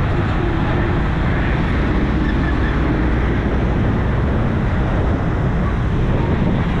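Steady rumble of a moving double-decker bus with traffic noise, mixed with wind on the microphone.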